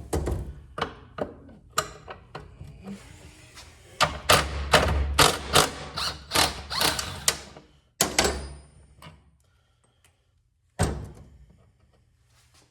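Socket ratchet working a bolt loose, with knocks of hand tools and metal parts: scattered clicks, then a loud run of quick clicks for a few seconds in the middle, then a few single knocks.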